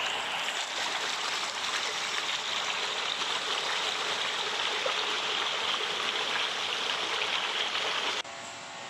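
Steady rushing and splashing of water in a koi pond crowded with koi at the surface. It cuts off suddenly near the end.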